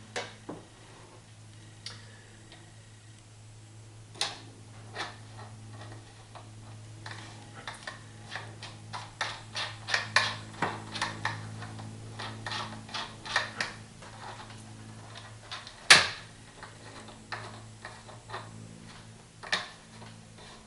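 Irregular small metallic clicks and taps as a motorcycle fork cap is handled and threaded by hand onto the top of the fork tube. The clicks come thickest in the middle, with one sharp, louder click near the end, over a steady low hum.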